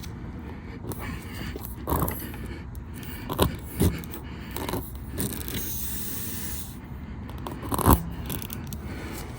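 Tire plug kit's reamer tool scraping in and out of a tire puncture hole in several irregular strokes, the loudest near the end, over a steady hiss of air escaping from the hole the tool is widening.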